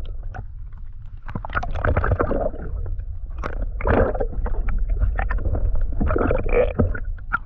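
Muffled gurgling and sloshing of water heard through a camera held underwater, over a steady low rumble, with irregular swells and scattered clicks and splashes.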